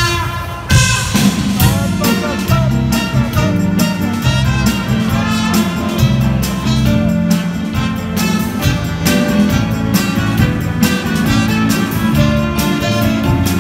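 Big band playing live jazz: saxophones, trumpets and trombones over bass and drums, with a steady beat.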